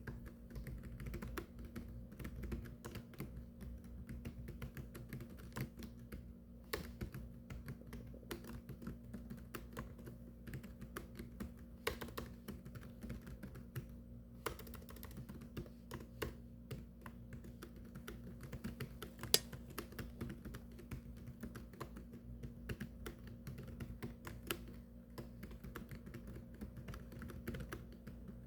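Continuous fast typing on a computer keyboard: a steady run of key clicks with now and then a single louder keystroke, over a faint steady low hum.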